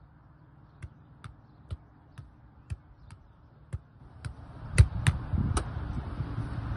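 Football being juggled in the air off the feet: a regular series of light ball touches, about two a second, the last few near the end louder thumps. Wind rumbles on the microphone over the second half.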